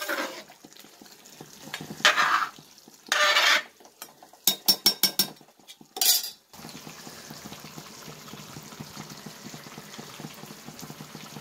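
A metal ladle stirring and scraping in a large aluminium pot of biryani, in several separate strokes with a quick run of clinks, as the just-added rice is turned lightly in the boiling gravy. After about six and a half seconds, a steady low hiss of the pot bubbling on the gas stove.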